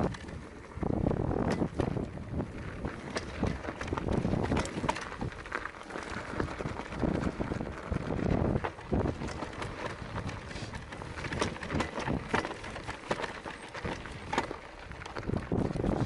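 Electric mountain bike riding down a loose, dry dirt-and-stone trail: tyres crunching over gravel and rocks, with many irregular clicks and knocks from the bike rattling, and a low wind rumble on the microphone.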